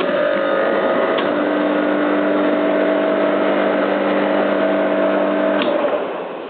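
Homemade air compressor built from two air-conditioner compressors with three-phase motors. It switches on abruptly and runs with a steady hum for about five and a half seconds, then cuts off with a click and fades away.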